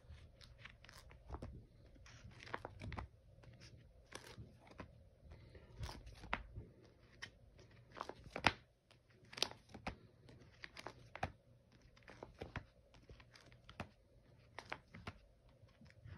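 Plastic binder pages crinkling and rustling as a hand flips and presses on card-filled pocket sleeves: a steady run of small, irregular crackles and taps.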